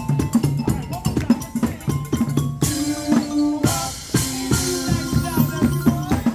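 Upbeat percussion music: quick, regular drum strokes over a deep bass-drum pulse, with pitched melodic notes sounding above the beat.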